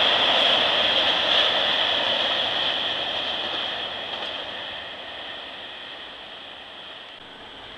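A train rolling past and moving away, its steady rolling and rail noise fading over several seconds.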